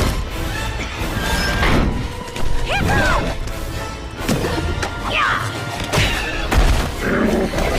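Animated film soundtrack of a dragon fight: orchestral score with crashes and heavy thuds, the heaviest about six and a half seconds in, and short dragon screeches that rise and fall, about three and five seconds in.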